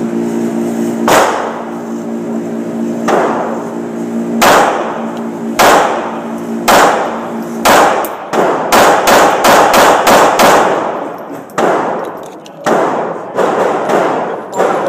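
A string of pistol shots in an indoor range: single shots about a second apart, then a quick run of about ten shots, then slower again. A steady hum runs under the first half.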